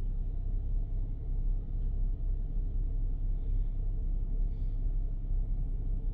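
2007 Kia Sedona's 3.8-litre V6 idling: a steady low rumble.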